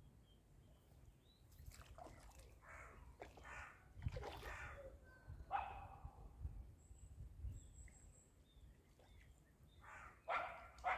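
Birds calling over a quiet outdoor background: small high chirps throughout, a few louder harsh calls about two to four seconds in and again near the end, and one call falling in pitch about five and a half seconds in.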